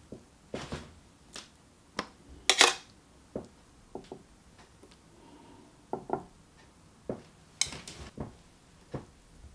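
Metal kitchen tongs clicking and clinking against a ceramic plate as slices of pork fillet are set down: a dozen or so irregular sharp taps, the loudest about two and a half seconds in and again after about seven and a half seconds.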